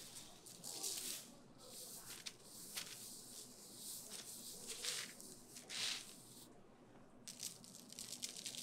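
Salt is sprinkled from a plastic bag onto a raw salmon fillet on parchment paper. A gloved hand rubs it in, with crinkling of the paper and glove. Near the end come quick rattling shakes of a pepper shaker.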